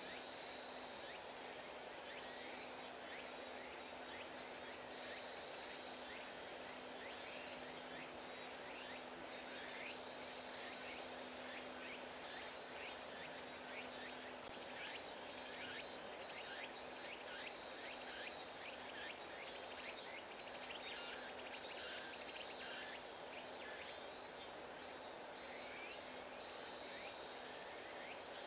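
Outdoor ambience of insects chirping in short pulsed trills that come and go, over a faint steady background murmur. A low hum runs underneath and stops about halfway through.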